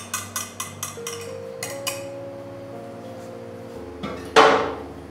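A whisk clinking rhythmically against a steel bowl as batter is stirred, about four to five clicks a second, stopping about two seconds in. Soft background music with held notes follows, and a single loud knock sounds near the end.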